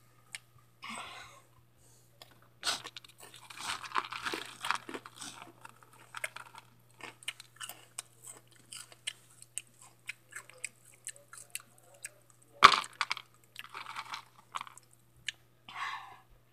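Close-up crunching and chewing of Hot Cheetos, many crisp crunches one after another, with one much louder sharp crack about three-quarters of the way through. A faint steady low hum sits underneath.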